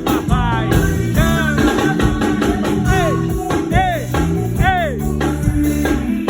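Live band music: drums and bass keep a steady groove under a lead melody whose notes slide up and back down in pitch, several times near the middle.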